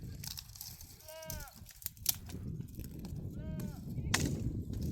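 Livestock bleating: three short, high, arching calls about two seconds apart. A few clicks and a sharp knock with a brief ring come about four seconds in, over a low rumble.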